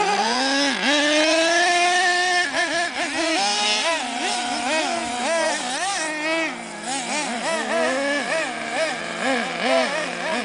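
Small nitro engines of radio-controlled cars revving hard, several at once: a rise to a sustained high-pitched run near the start, then quick blips of throttle up and down from about four seconds in, over another engine holding a steady idle.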